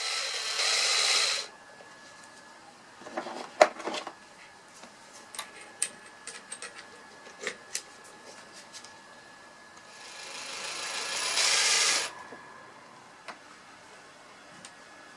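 A small power tool runs in two short bursts, a hissing whir that runs briefly at the start and again builds up for about two seconds before cutting off suddenly near the end. Between the bursts come scattered clicks and knocks, the loudest cluster a few seconds in.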